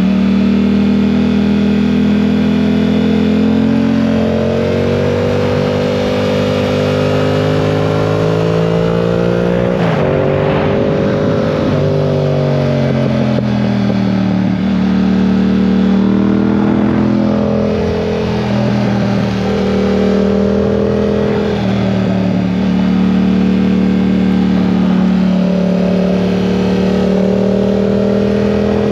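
2022 Yamaha R7's 689 cc parallel-twin engine under way, its note rising and falling and stepping between pitches as the rider works the throttle and changes gear. A brief rush of noise cuts across it about ten seconds in.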